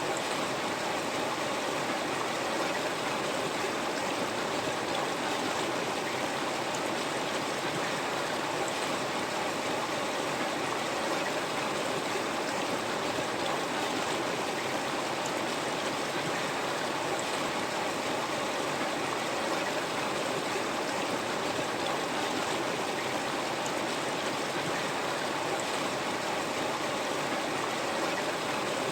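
River water flowing over stones in a steady, even rush with small gurgles.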